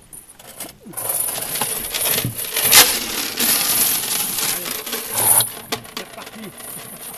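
Metal chain of a small chain ferry rattling and clanking against the aluminium deck as it is hauled, for about four and a half seconds starting about a second in, then a few scattered clinks.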